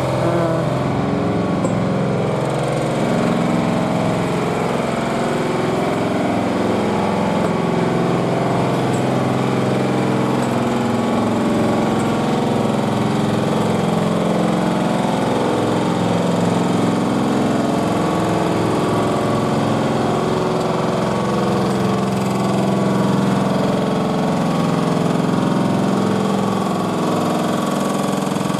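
Building-site jackhammer work: a loud, steady mechanical din with a rapid, even pulsing and an engine-like drone underneath.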